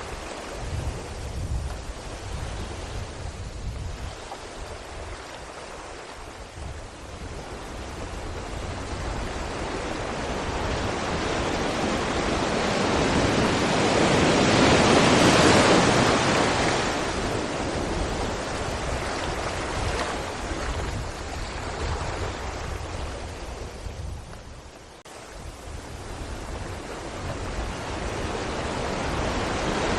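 Sea waves breaking against rocks: the surf swells slowly to a loud crash about halfway through, falls back, then builds again toward the end. A low, unsteady rumble runs underneath.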